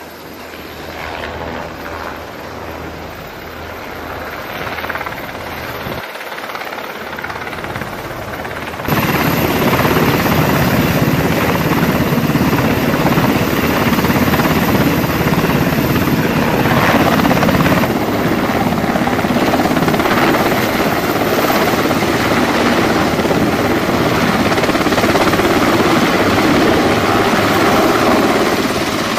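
MH-60S Sea Hawk helicopter's twin turboshaft engines and rotor running as it hovers with an underslung load, a dense steady noise. It becomes suddenly much louder about nine seconds in and stays loud.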